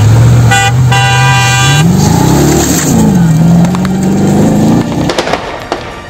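A rally-prepared Toyota FJ Cruiser's 5.7-litre V8 runs hard; about two seconds in, its pitch sweeps up and back down as it revs, then holds steady. Under a second in, a vehicle horn honks for about a second, and a few sharp cracks sound near the end.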